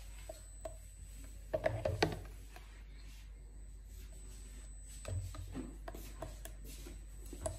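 Light knocks, clicks and rubbing of kitchen utensils and dishes being handled, with two louder clusters of knocks about a second and a half in and about five seconds in.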